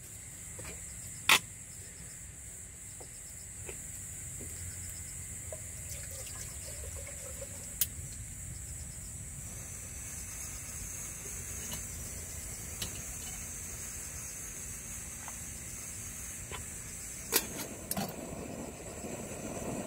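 Portable gas canister stove burning under a cook pot, a steady low rush, with a few sharp clicks and knocks of the metal pot and lid being handled. Near the end the noise grows broader as instant noodles go into the pot.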